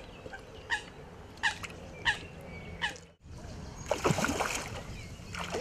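A hooked tench splashing and thrashing at the surface of the lake as it is played in at the bank edge, the splashing starting about four seconds in. Before it, a few short sharp chirps.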